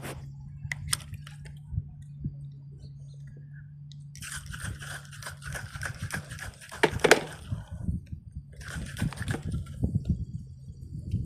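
WD-40 aerosol can spraying in two bursts of hiss, a long one from about four seconds in and a shorter, weaker one near the end, after a few sharp clicks at the start.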